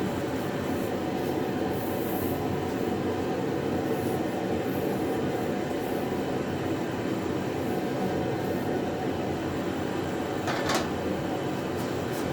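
Steady rumbling machine noise with a faint steady tone, and one sharp metallic clink about ten and a half seconds in, as of a metal part being set down during assembly of a welding cart.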